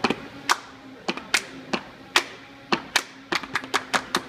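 Sharp claps from a group doing a cheer, scattered at first and quicker near the end, over a faint steady hum.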